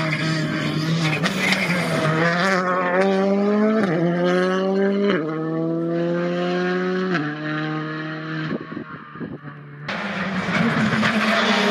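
Škoda Fabia Rally2 rally car's turbocharged four-cylinder engine accelerating hard away on full throttle. The pitch climbs through each gear and drops at quick upshifts about four, five and seven seconds in, then fades with distance. Just before the end the sound cuts abruptly to a loud rally engine again.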